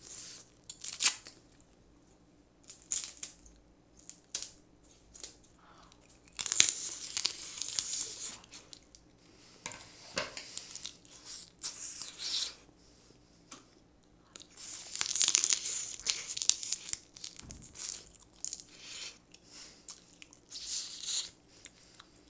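Steamed blue crab shells being cracked and pulled apart by hand, with scattered sharp cracks and a few longer stretches of crackling as the legs and claws are broken open.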